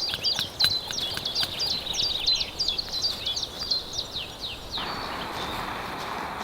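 A small songbird sings a fast run of repeated high chirping notes, with a few sharp clicks in the first second. About five seconds in the song stops and a steady hiss begins.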